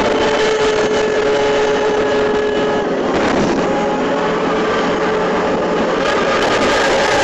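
Rescue boat's motor running steadily under way, under a loud, even rushing noise. The engine note shifts briefly about three seconds in.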